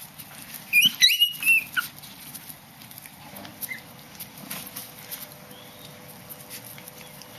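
Chihuahua puppies play-fighting: a quick burst of several high-pitched yelps about a second in, and one faint short yelp a few seconds later. Faint scuffling and small clicks run beneath.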